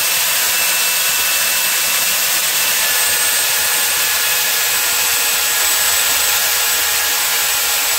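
Electric belt sander running steadily, locked on and clamped upright as a bench sander, with a wooden block held against the moving belt.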